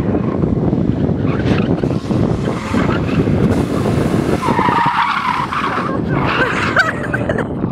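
A Datsun 280ZX with its inline-six engine, driven hard through an autocross course and passing close by. From about halfway through, its tyres squeal through the corners. Heavy wind rumble on the microphone runs underneath.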